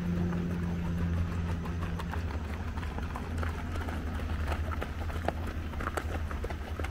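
Running footsteps of cross country runners on a dirt trail: many quick, irregular footfalls, over a low steady hum whose higher tone fades out about two seconds in.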